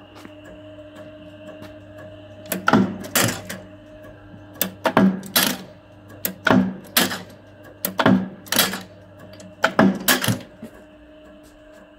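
Rijva 40-tonne eccentric press running, its motor and flywheel giving a steady hum. About two and a half seconds in it starts cycling through five strokes, each stroke giving two sharp metallic clanks about half a second apart.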